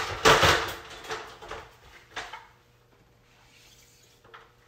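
A light ladder being handled and set in place: a loud clatter in the first second, then a few smaller knocks.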